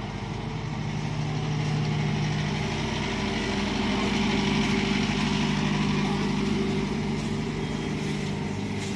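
Boat engine running steadily at low revs; it grows a little louder and its note rises slightly about two seconds in.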